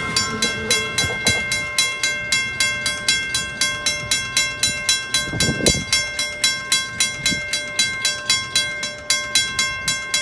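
Railroad crossing bell ringing steadily at about four strokes a second, while the last coach of a departing Amtrak train rumbles past and the train sound fades. A brief low rumble swells about halfway through.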